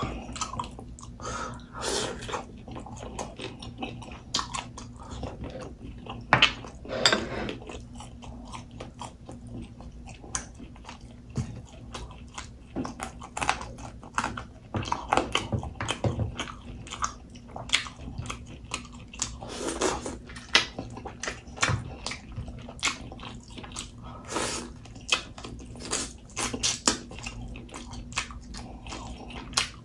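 Close-miked chewing and biting as a man eats pork with his fingers: wet mouth sounds with irregular short clicks and smacks.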